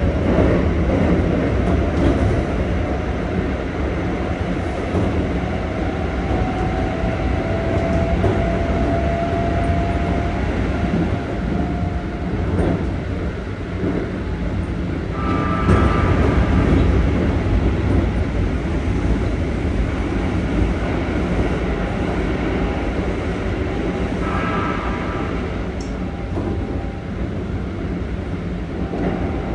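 Keikyu 1500 series electric train with Toyo GTO-VVVF traction equipment, heard from inside a passenger car while running: a steady low rumble of wheels and running gear. A faint tone rises slowly about a quarter of the way in, and brief higher whines come twice, around the middle and about four-fifths through.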